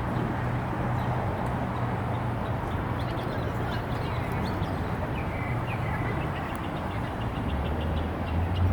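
Steady low city background hum with no clear events, and faint short bird chirps about halfway through.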